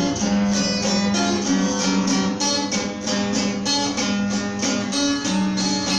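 Brazilian viola caipira played on its own, with no singing: its paired steel strings strummed in a steady, even rhythm over a repeated low note.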